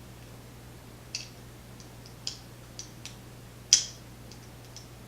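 Small metal tools clicking and tapping against a padlock's cylinder as it is worked apart by hand: a handful of scattered, sharp clicks, the loudest about three and a half seconds in.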